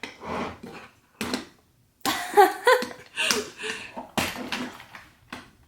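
Small wooden toy pieces knocking and clattering on a hard surface, several separate sharp knocks. A young child's high babbling runs through the middle.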